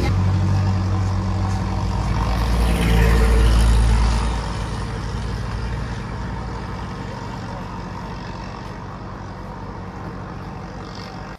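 Tanker lorry's engine idling steadily, a low even hum. It is loudest for the first four seconds or so, then slowly fades.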